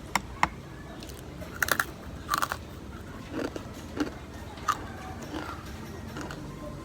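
Biting and chewing crispy sweet potato fries: a series of short crunches, two near the start and a cluster a couple of seconds in, then scattered softer ones.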